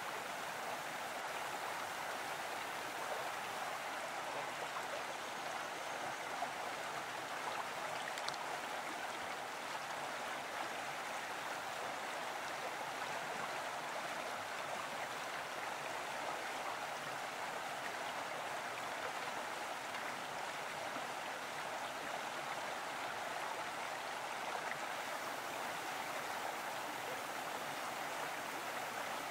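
A stream flowing steadily.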